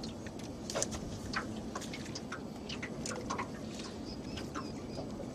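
Irregular small clicks and ticks from handling a flathead and fishing tackle while the lure is worked out of the fish's mouth, over a steady background hiss.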